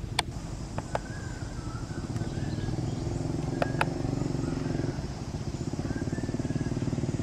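A motor engine running steadily with a low, pulsing drone that grows louder about two seconds in, with a few sharp clicks in the first half.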